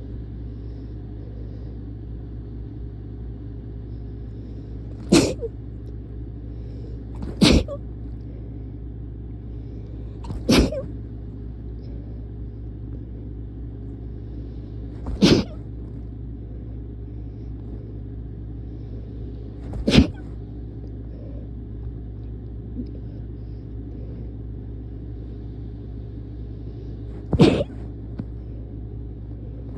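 A person sneezing from allergies: six sharp, loud sneezes a few seconds apart, over a steady low rumble.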